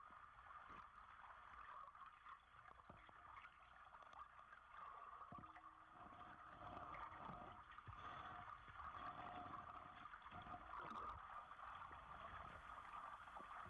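Faint underwater gurgling and bubbling of water, growing a little louder about halfway through.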